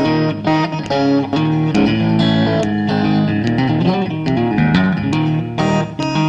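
Guitar-led blues music: an instrumental passage of plucked guitar notes over a bass line, with no singing.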